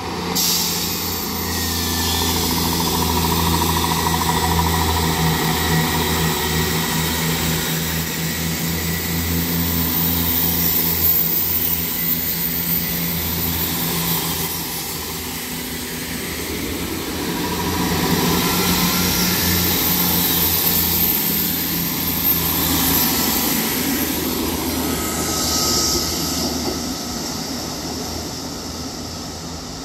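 Diesel engines of a South Western Railway Class 159 multiple unit running with a steady low drone as the train moves along the platform. The sound rises and falls, loudest in the first third and again a little after the middle.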